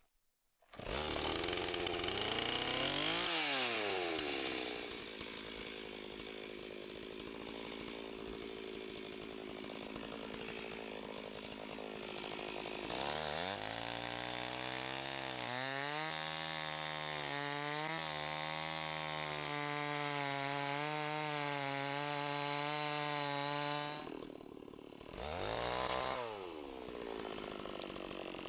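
Chainsaw cross-cutting a storm-damaged log. The engine's pitch dips and climbs again about three seconds in, settles to a lower steady note for a long stretch, then revs up and falls back once near the end.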